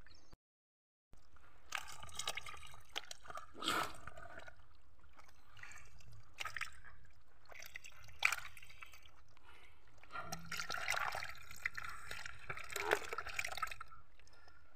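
Water splashing and dripping in a shallow basin as hands handle live fish, in irregular small splashes that are busiest near the end. The sound drops out briefly about half a second in.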